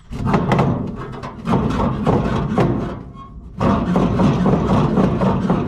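Rusty metal parts of an Oliver 76 grain drill's fertilizer mechanism clanking and rattling as they are worked by hand, in two long stretches of irregular knocks with a short pause about three seconds in. The mechanism is stiff and not turning freely.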